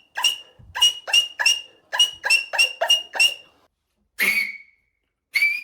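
Beatboxer's loud mouth whistle: a rapid string of about ten short, sharp, high-pitched whistle blasts, then two longer single blasts near the end.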